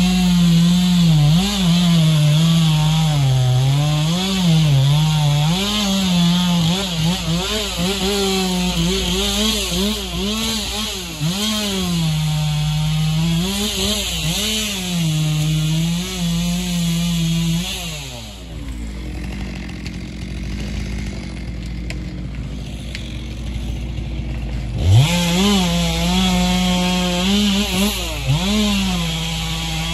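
Stihl two-stroke chainsaw running at high revs, its pitch wavering up and down as it cuts through timber. About two-thirds of the way through it drops back toward idle for several seconds, then revs sharply up again and carries on cutting.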